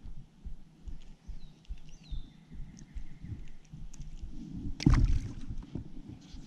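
Handling noise on a fishing paddleboard: soft, irregular bumps and water sloshing against the board, with one sharp knock about five seconds in, the loudest sound.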